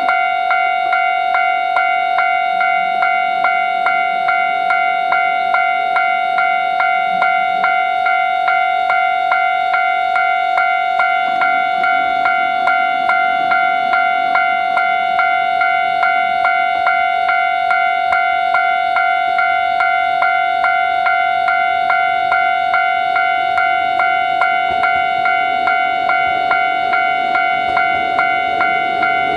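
Japanese level-crossing warning bell ringing steadily with an even, ringing 'kan-kan' tone, a little over two strokes a second, the crossing's alarm for an approaching train. A low train rumble grows near the end.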